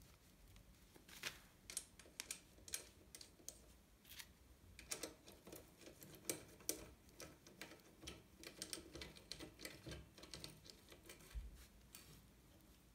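Faint, irregular clicks and taps of a hex key and metal bicycle parts being handled as a BMX crank bolt is tightened during bottom bracket reassembly.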